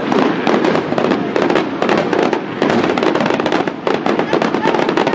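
Aerial firework shells bursting in quick succession: a dense, unbroken run of bangs and crackling.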